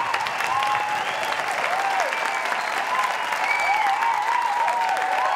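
A crowd applauding and cheering: a steady wash of clapping with many high cries rising and falling in pitch over it.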